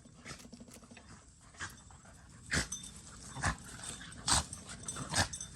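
A knife chopping through a mullet's head and backbone against a plastic cutting board: four sharp knocks, about one a second, in the second half.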